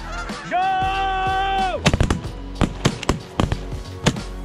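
Shotguns firing at a flock of geese overhead: a rapid, ragged volley of many blasts starting about two seconds in, closely overlapping as several guns shoot at once. Before it comes a long held call at one steady pitch.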